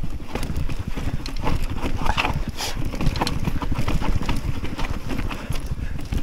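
Mountain bike rolling over a rocky trail: a rapid, irregular clatter of tyres, chain and frame knocking on stones, over a steady low rumble.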